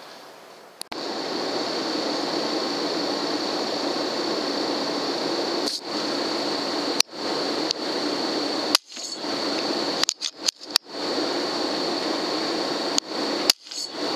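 A steady mechanical whir and hiss with a faint high whine starts about a second in. It is broken several times in the second half by sharp clicks and brief dropouts.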